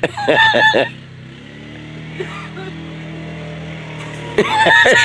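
Four-wheeler (ATV) engine running with a steady low hum, drowned out by loud shouting at the start and again near the end.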